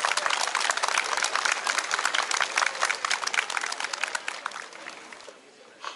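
Crowd applauding, many hands clapping together, then dying away about five seconds in.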